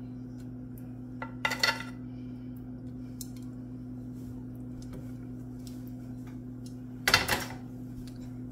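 Kitchen utensils knocking and clinking against dishes while taco fillings are served: a short clatter about one and a half seconds in and a louder one near the end, over a steady low hum.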